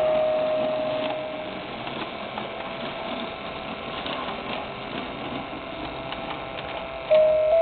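Motorised Christmas train display running between tunes: a steady mechanical whir with faint ticking from the toy train circling its track and the carousel turning. A last chime note fades out in the first second or so, and the next tune starts near the end.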